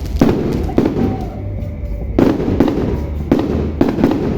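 Fireworks going off in quick succession, a series of sharp bangs with crackle between them.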